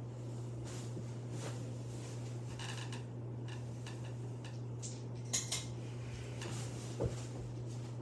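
Quorum Capri ceiling fan running with a steady low hum while its pull chain is handled: light metallic rattles of the bead chain, then two sharp clicks about five seconds in as the light-kit switch is pulled on, and a low knock near the end.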